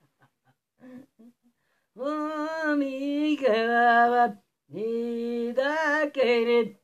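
An elderly man singing two long phrases unaccompanied, starting about two seconds in, with held notes that step down in pitch and a short break between the phrases.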